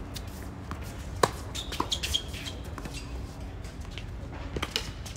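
Tennis ball struck back and forth by rackets in a doubles rally: sharp pops of racket on ball, the loudest a little over a second in, with fainter hits about two seconds in and near the end, over a low steady rumble.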